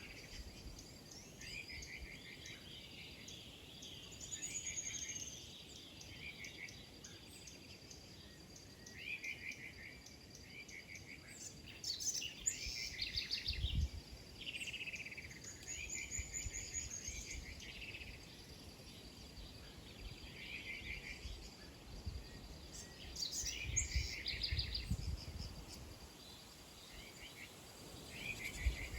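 Several small birds chirping and calling in short repeated phrases, with a steady thin high tone underneath. A couple of low bumps come midway and near the end.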